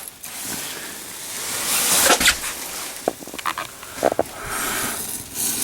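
Sea Dog emergency match flaring up in a wood-stove fire: a hissing rush that swells about two seconds in, with a few short crackles.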